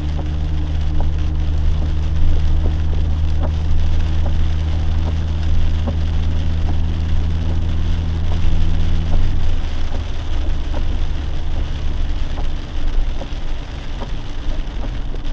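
Rain hitting a moving Jeep, heard inside the cabin as scattered sharp ticks over a hiss, with a steady low drone of engine and road underneath. The drone's tone changes about nine seconds in.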